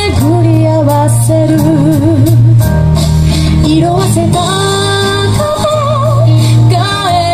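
A woman singing live, with vibrato on her held notes, over instrumental accompaniment with a steady beat.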